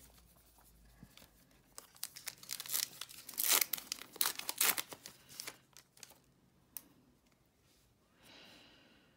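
Foil trading-card pack wrapper being torn open and crinkled in the hands, a run of sharp crackles loudest about halfway through.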